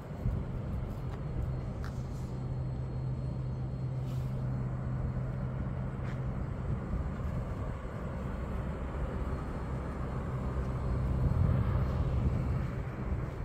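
Steady low engine hum of a vehicle over a wash of road noise, swelling louder about eleven seconds in.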